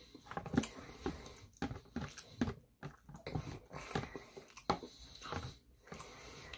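Close-miked chewing of a mouthful of sushi: irregular wet mouth smacks and clicks, several a second.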